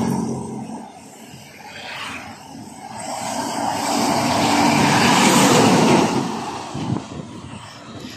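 Heavy trucks passing close on a highway, with engine hum and tyre noise. One passage fades in the first second. A larger one swells from about 3 s, peaks just before 6 s, and dies away; it comes from a tractor unit hauling an empty flatbed trailer.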